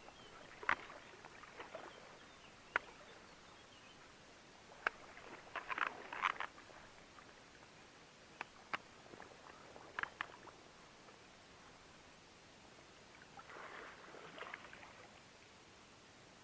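Sharp, scattered clicks of fishing gear and small water splashes on a small craft drifting on a river, with two brief splashy spells about six and fourteen seconds in.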